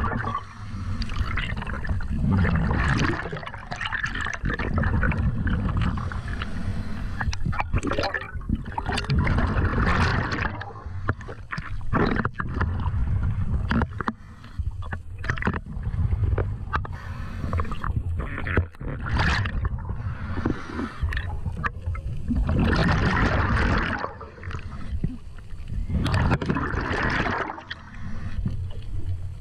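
Underwater noise of a diver swimming with long fins: water rushing and gurgling past the camera housing over a constant low rumble, coming in irregular surges.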